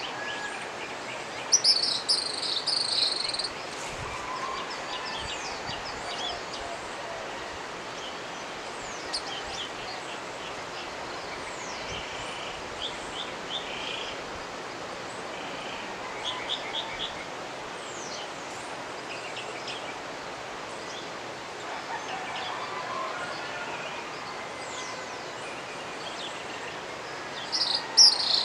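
Steady rush of the Jimenoa mountain river with wild birds calling over it: a loud high call about two seconds in and another near the end, with short runs of quick chirps in between.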